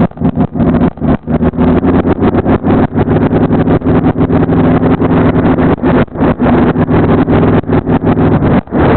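Kawasaki Vulcan chopper's engine running at a steady pace while riding. The sound is choppy, with many brief dropouts.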